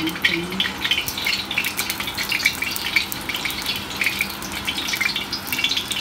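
Oil sizzling and crackling in a black wok as a piece of ginger fries in it: a dense, steady run of small quick pops.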